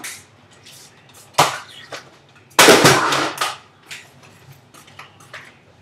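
A few sharp, shot-like bangs and clicks, typical of toy blasters firing. The loudest is a longer burst about two and a half seconds in.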